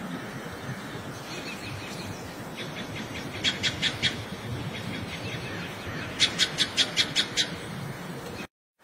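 Outdoor background noise with a bird chirping in two quick runs of short, high notes, about six a second, a little past a third of the way in and again past two thirds of the way in.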